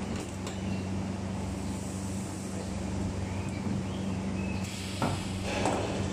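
Copper-wheel resistance seam welder running on a stainless steel water tank, with a steady low electrical buzz under a noisy hiss as the wheel electrode rolls along the seam. Louder brief noises come about five seconds in and again near the end.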